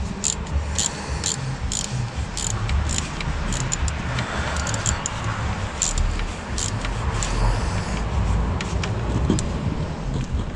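Ratchet wrench on a long socket extension clicking and clinking irregularly as it turns the screws on a truck's air dryer, over a low rumble.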